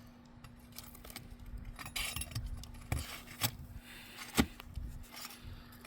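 Scattered light clicks, clinks and scraping as an asphalt roof shingle is lifted and pried at with a hand tool. The sharpest knock comes about four and a half seconds in.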